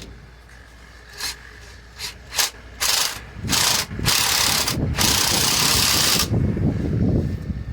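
Ratchet wrench running a nut down onto the mounting bolt of a truck's quick release brake valve. It clicks in several short spurts, then in one longer run of about two seconds.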